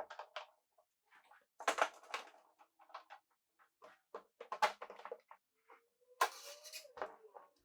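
Scattered clicks and knocks of bar clamps being tightened and handled on plywood panels, with a short stretch of steadier noise carrying a faint rising tone about six seconds in.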